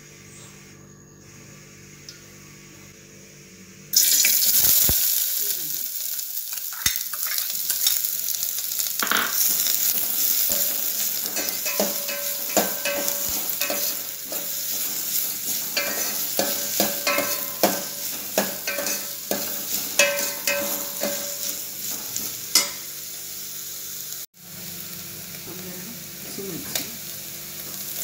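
Chopped onions going into hot oil in a steel pot about four seconds in, setting off a loud sizzle that keeps going while a metal spoon stirs them, scraping and clinking against the pot.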